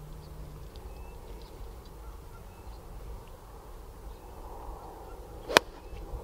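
A golf club strikes a ball once, a single sharp crack about five and a half seconds in, for a layup shot down the fairway. Faint bird chirps and a low rumble of wind sit beneath it.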